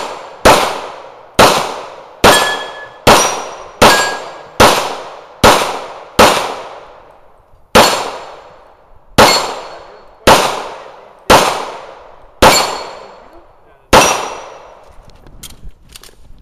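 Semi-automatic pistol shots fired at steel plate targets, about fourteen at a steady pace of roughly one a second with a few short pauses. Several shots are followed by the ring of a struck steel plate.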